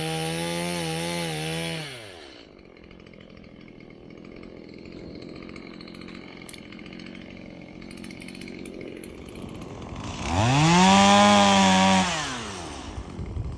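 Stihl MS170 two-stroke chainsaw running at full throttle through a cut, its pitch wavering slightly, then dropping back to idle about two seconds in. It revs up again to full throttle about ten seconds in, holds for a couple of seconds and falls back to idle, with a few knocks near the end.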